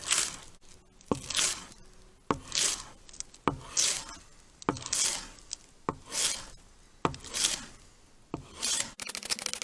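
A utensil scraping through sausage and fried potatoes in a skillet, mixing them in regular strokes about once a second, each stroke starting with a tap against the pan. A short run of fast clicking near the end.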